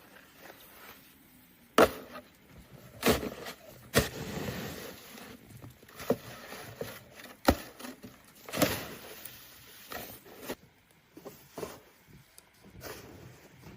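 Wood being struck and snapped: about five sharp, uneven knocks, with softer rustling in between.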